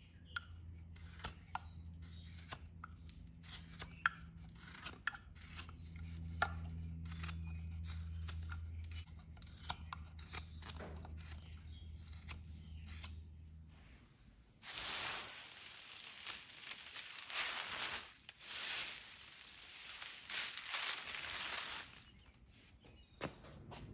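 Small carving knife whittling a hardwood shaft: a series of short, sharp slicing clicks over a low steady hum. About a third of the way from the end, the clicks give way to loud rustling bursts of dry wood shavings being scooped and crumpled by hand.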